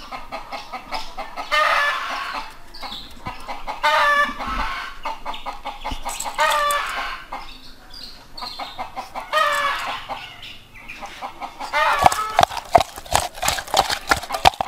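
A chicken calls four times, each call short and pitched, a few seconds apart. Near the end come quick wet squelching clicks as fish-head pieces coated in turmeric and chilli powder are mixed by hand in a steel bowl.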